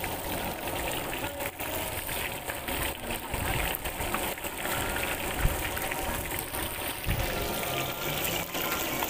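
Battered fish and shrimp sizzling steadily as they deep-fry in a wok of hot oil, with a few sharp clicks through it.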